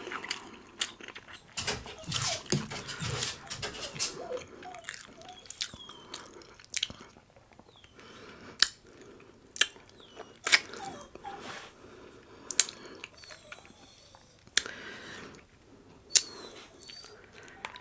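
Close-up eating sounds: chewing and biting into rotisserie chicken, with irregular wet mouth clicks and smacks. A few faint high squeaks come in near the end.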